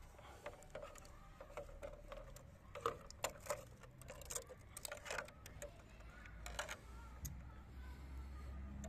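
Thin ice on the water in a watering can cracking and clinking as a hand breaks through it and lifts a sheet out. Faint scattered clicks and snaps, most of them from about three seconds in.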